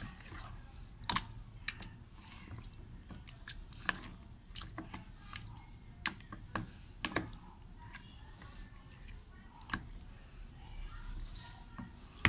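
A hand mixing chicken pieces into a yogurt marinade in a plastic bowl: irregular wet squelches and sharp clicks as the meat is squeezed and turned.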